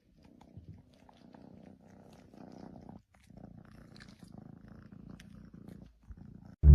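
Cat purring, a low rumble that breaks off briefly about three seconds in and again about six seconds in. Loud music comes in right at the end.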